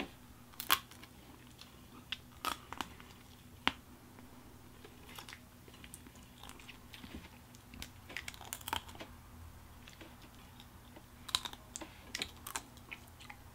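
Boiled crawfish shells being cracked and peeled by hand: irregular sharp clicks and crackles, a few loud single snaps early on and small clusters later, with some chewing between.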